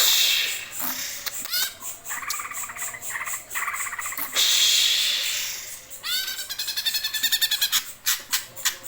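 Greater green leafbird (cucak hijau) singing a continuous rolling song without pause: varied whistled phrases broken by two harsh rasping notes, one at the start and one about halfway, then a fast run of repeated upswept whistles in the last third.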